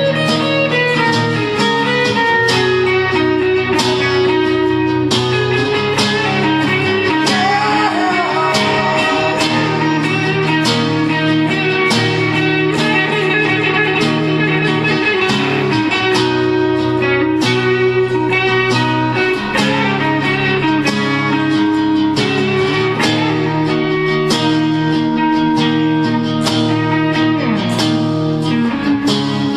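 Guitars playing an instrumental passage of a song: a lead line with bent notes over steadily plucked chords.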